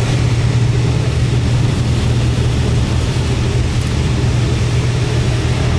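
A machine running steadily, a low hum under a constant wash of noise.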